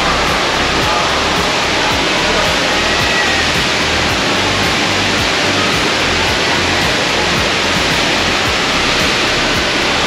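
HSBC Rain Vortex, a 40-metre indoor waterfall, running: a loud, steady rush of falling water.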